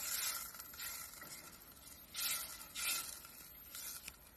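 A wooden spoon stirring arborio rice and simmering chicken stock in a pot, the rice being worked to release its starch. Soft, irregular scraping swishes, strongest near the start, about two seconds in and near three seconds.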